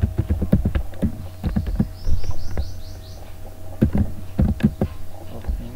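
Computer keyboard keystrokes, irregular clicks as code is typed, over a low steady hum. A brief run of quick high chirps comes about two seconds in.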